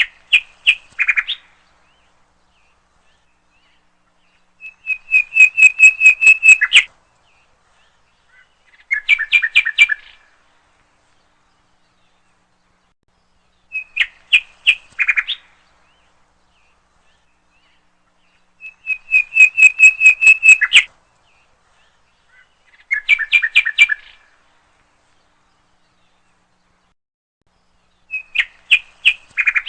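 A songbird singing short phrases of rapid, clipped whistled notes, one phrase every four or five seconds with silence between. The same three phrases repeat in the same order about every 14 seconds, as in a looped recording.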